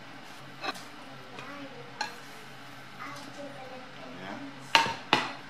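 Spatula scraping and tapping in a non-stick frying pan while turning a pancake, with a few sharp clicks. Two louder knocks near the end come as the pan is tipped over a plate and the pancake is slid off.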